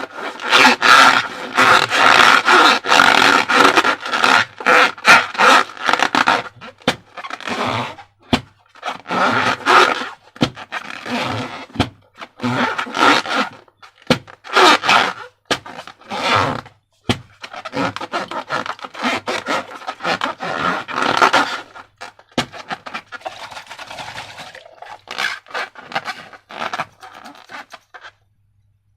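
Hands working rubber balloons and slime up close: repeated rubbery scraping, squeaking and squishing strokes, dense at first and sparser after about twenty seconds, stopping shortly before the end.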